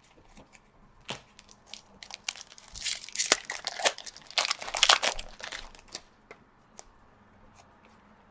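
Foil wrapper of a hockey card pack crinkling and tearing as it is handled and opened, with scattered light clicks of card handling. The crinkling is loudest in a burst from about two and a half to five and a half seconds in.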